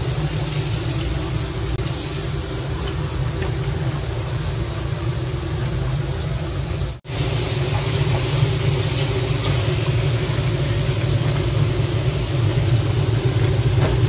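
Hot oil bubbling and sizzling in a deep kazan over a gas burner, with a steady low rumble under the hiss; the sound drops out for an instant about seven seconds in.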